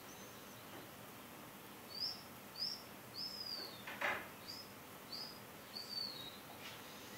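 A small bird calling in the background: a run of six short, high chirps, each rising then falling, spaced a little over half a second apart over about four seconds. A brief scuff comes near the middle.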